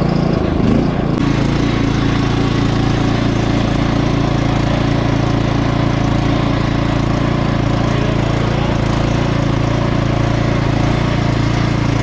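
Cub Cadet XT1 riding lawn mower's engine running loud and steady at a constant speed.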